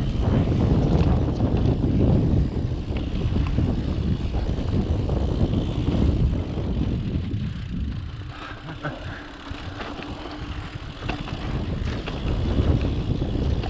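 Mountain bike descending a dirt trail: wind buffeting the camera microphone and knobby tyres rumbling over the ground, with scattered clicks and knocks from the bike. It eases off about eight seconds in, where a faint steady hum comes in, and builds again near the end.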